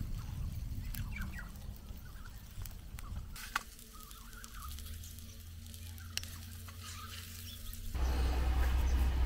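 Food frying in a steel paella pan over campfire coals: scattered crackles and small pops, with a few sharp ticks from the metal spatula and pan, including one about three and a half seconds in, over a low rumble. About eight seconds in this gives way to a louder steady low hum.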